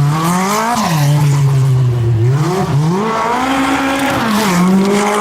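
Group B rally car engine at full throttle on a stage, its pitch climbing hard, dropping sharply just under a second in, sagging, then climbing again to a peak about three and a half seconds in before falling back as the driver lifts and changes gear.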